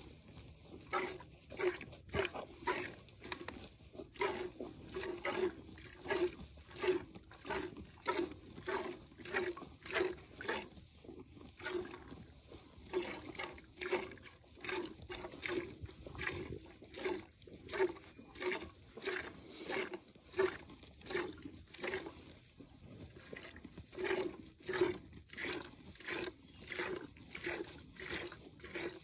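Hand-milking a Jersey cow: streams of milk squirting into a metal pail in a steady rhythm of about two squirts a second, each a short hissing spurt with a slight ring from the bucket.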